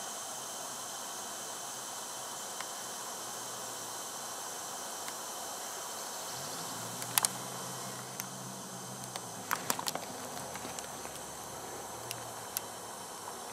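Steady hiss from a camcorder's microphone, with scattered sharp clicks and snaps. The loudest is a double click about seven seconds in, and a cluster follows around nine and a half to ten seconds. A low hum runs from about six and a half to nine seconds.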